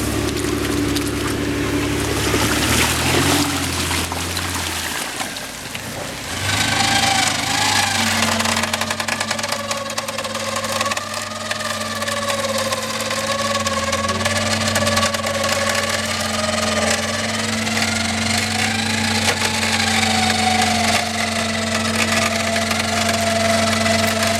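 SUV engine running steadily at low revs, joined about seven seconds in by a higher whine that slowly wavers in pitch.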